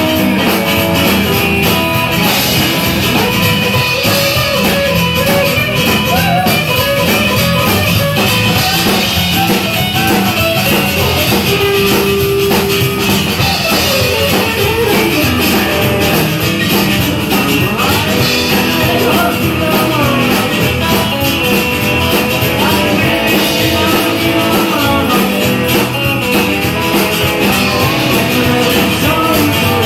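A live rockabilly band playing: upright bass, drum kit, hollow-body electric guitar and acoustic guitar.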